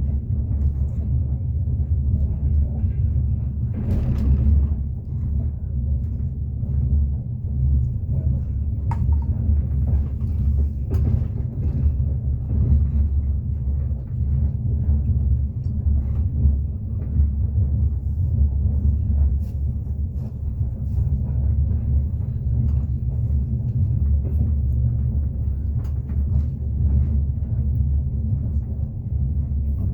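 Train wheels running on the rails heard from inside a moving carriage: a steady low rumble with a few scattered knocks.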